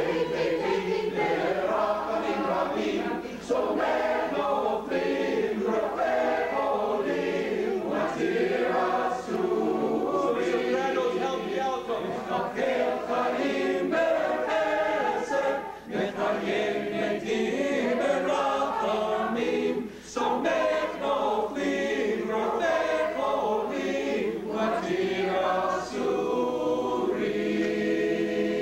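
Mixed synagogue choir of men's and women's voices singing together in rehearsal, with a few short breaks between phrases.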